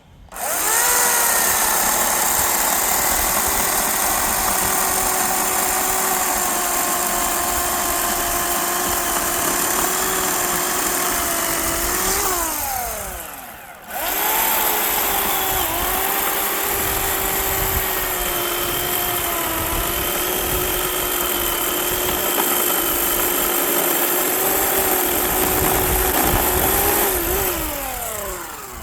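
Electric chainsaw running at full speed, twice for about thirteen seconds each, as it cuts up a tree trunk log; its whine sags and wavers under load, and each run ends with the motor winding down in falling pitch.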